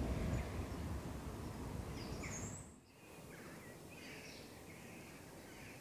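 Wind rumbling on the microphone, then a sudden drop about three seconds in to quieter outdoor background with small birds chirping.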